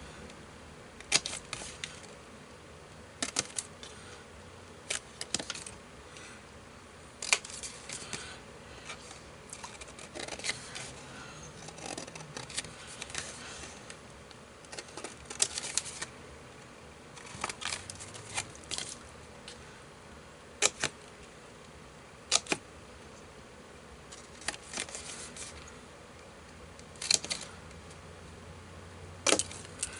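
Scissors snipping through paper along cut lines: short, sharp snips, single or in quick runs of two or three, every second or two.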